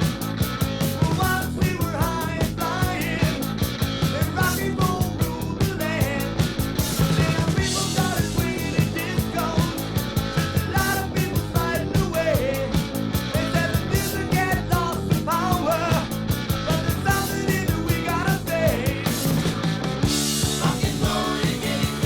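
1980 rock band recording in an instrumental break, guitar, bass guitar and drums playing at a steady beat, with a lead melody of bending notes on top.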